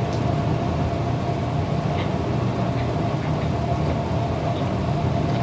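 A steady low mechanical hum with a faint constant tone, and a few faint small clicks.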